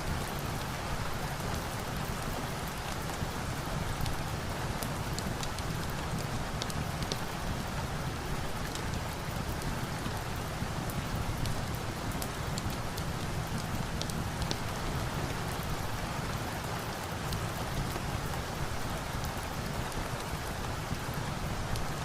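Steady rain falling, with scattered sharp crackles from a log fire.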